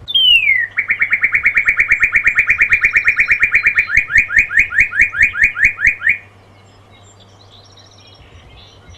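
Northern cardinal singing: one long down-slurred whistle, then a fast string of short repeated whistles that slows about four seconds in to longer down-slurred notes, stopping at about six seconds.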